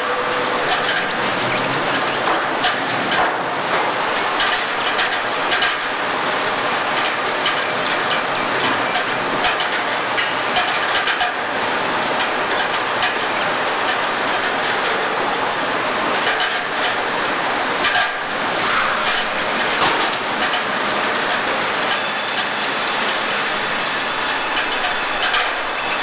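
Sawmill production line for oak boards running: steady machinery noise with constant clatter and knocking of boards on the conveyor. A high, steady whine joins near the end.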